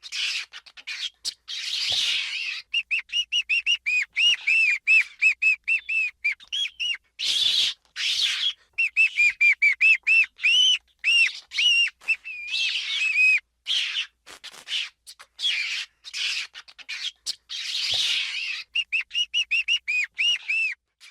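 Ferret squeaking: runs of short, high, chirp-like squeaks, about four a second, broken every few seconds by a harsher, hissier squeal.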